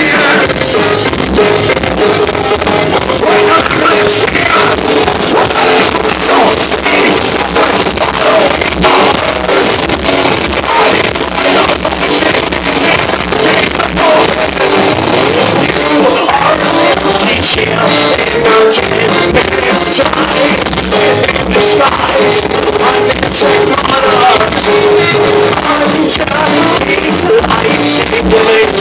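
Live rock band playing loud, with electric guitar, drums and singing.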